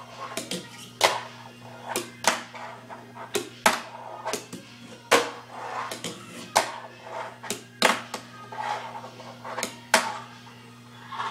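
A fingerboard clacking against a desk top during finger tricks: sharp, irregular clacks of the deck and wheels hitting the surface, roughly one every half second to a second, over a low steady hum.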